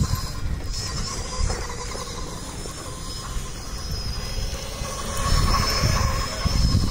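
Battery-powered Grave Digger RC monster truck's electric motor whining at a high pitch, the whine wavering with the truck's speed. A low rumbling noise underneath grows louder about five seconds in.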